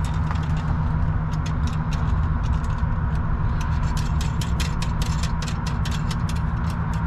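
A steady low engine hum runs throughout. From about a second in there is a run of light, sharp metallic clicks, several a second and coming thicker in the second half: hand-tool work on the turbo down-pipe clamp.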